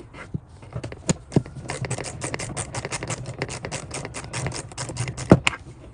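Rapid, even clicking, about eight clicks a second, with a single sharper click near the end, from hand work on a car's rear door panel.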